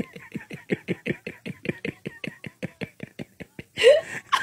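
A man laughing into a microphone in a fast, even run of short pulses, about eight a second, with a louder rising cry near the end.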